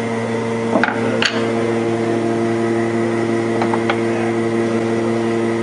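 A steady mechanical hum made of several even tones, with a few light wooden clicks and knocks about a second in and again near four seconds in, as small wooden fixture pieces are set into a coaster jig on the CNC router bed.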